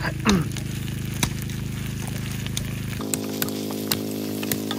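Food frying in a pan, with scattered crackles and pops over a steady low hum. The hum changes abruptly about three seconds in.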